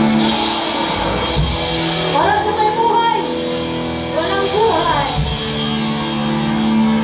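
Live band playing amplified music through the PA, electric guitars over held chords. A singer's voice comes in with short phrases about two seconds in and again about four seconds in.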